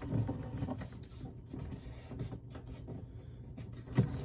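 Green origami paper rustling and crinkling as hands press and fold its creases, in scattered small rustles and clicks, with a sharper crackle or knock about four seconds in.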